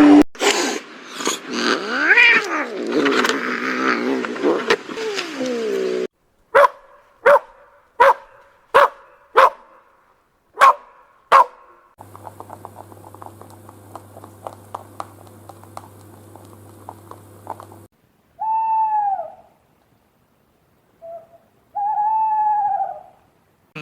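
Domestic cat meowing: two drawn-out meows in the last several seconds, after a stretch of mixed animal noise and a run of short sharp sounds repeated about every three-quarters of a second.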